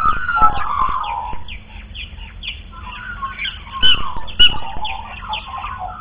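A group of Australian magpies calling together: overlapping warbling notes and many short falling calls, loudest in the first second and again in two sharp calls about four seconds in.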